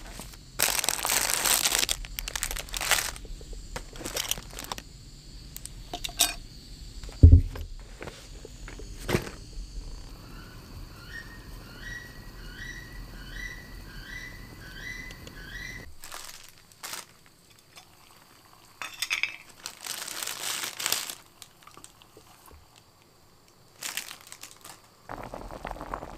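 Crinkling and rustling of a foil-lined food bag and packets being handled, with a sharp knock about seven seconds in. In the middle a bird calls a quick run of short rising notes, about two a second.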